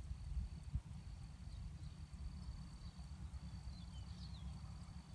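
Outdoor ambience: an uneven low rumble of wind on the microphone, a thin steady high whine, and a few brief chirps about four seconds in.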